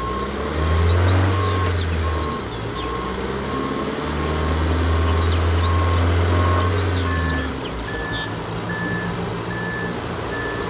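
Concrete mixer trucks' backup alarms beeping steadily, about one and a half beeps a second, over a deep diesel engine drone that swells and falls back twice. About seven seconds in, a higher-pitched backup beeper takes over at the same pace.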